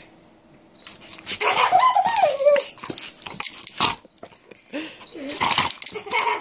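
Chocolate Labrador retriever growling and snapping at squirts of water, with a wavering whine about two seconds in amid noisy bursts of spray and jaw snaps.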